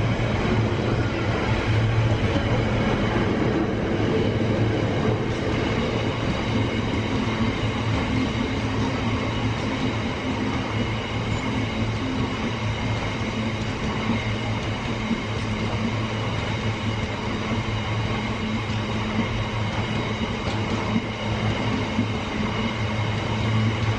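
A train running, a steady rumble with a low hum and a few steady higher tones throughout.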